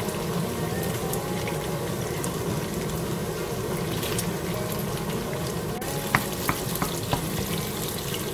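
Diced pork and pork fat frying in rendered fat in a wok, sizzling steadily while a wooden spatula stirs them. A few sharp taps come about six to seven seconds in.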